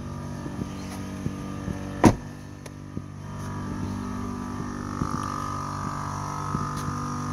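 Onboard air compressor of a truck's train-horn kit running steadily, pumping up its 5-gallon air tank toward about 80 psi. A higher whine comes in a little after three seconds, and there is one sharp click about two seconds in.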